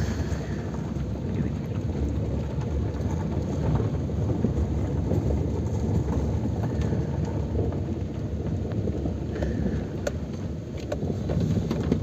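Steady low rumble of a vehicle travelling along a road, with wind buffeting the microphone.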